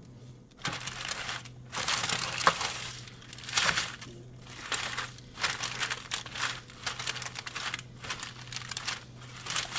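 Parchment paper crinkling and Napa cabbage leaves rustling as hands spread them out and press them flat, in a run of short bursts.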